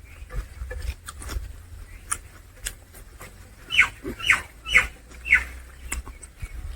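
Mouth sounds of eating: scattered wet clicks and smacks while chewing, with four short high squeaks falling in pitch, about half a second apart, a little past the middle.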